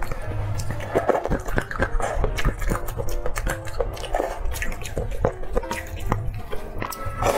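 Close-miked eating of spicy noodle soup: chopsticks stirring noodles in a metal bowl, then chewing with many small wet clicks. Light background music of short held notes runs underneath.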